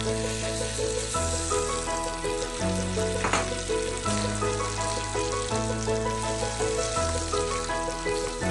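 Masala, green chillies and garlic sizzling in hot mustard oil in a steel pan as the paste goes in and is stirred. Background music with a steady bass line plays over it.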